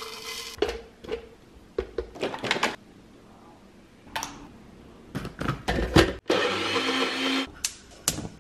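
Knocks and clatter of ingredients being added to a personal blender cup. Near the end the blender runs for about a second and a half, mixing oat, egg-white and banana pancake batter.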